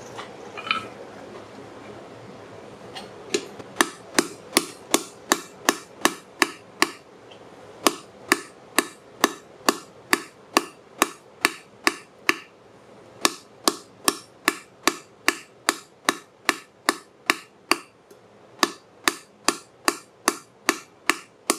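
Blacksmith's hand hammer striking a red-hot railroad spike on a steel anvil, forging it. The blows start about three seconds in and come in steady runs of about two to three a second, with brief pauses between runs.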